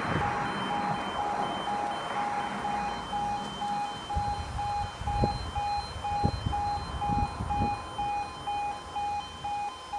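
Level crossing warning alarm beeping repeatedly, about twice a second, while the barrier lowers; near the end a second, slightly higher tone starts alternating with it. A passing car's noise fades in the first few seconds.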